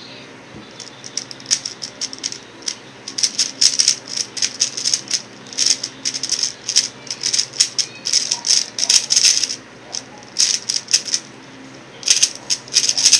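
X-Man Tornado V1 3x3 speed cube being turned fast in a speedsolve: rapid runs of clicking, clattering turns, with a pause of about a second shortly before the end and then a last quick flurry.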